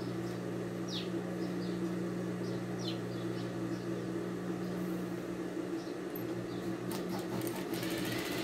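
Steady hum of an industrial sewing machine's motor running while the needle is idle, with small birds giving short, falling chirps now and then. Near the end the machine starts to stitch, a quick run of clicks over a rising whine.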